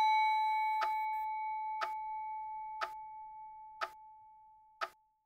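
A clock bell's single ring with a clear tone and bright overtones, slowly fading away over about five seconds. Over it, a cuckoo clock ticks steadily once a second.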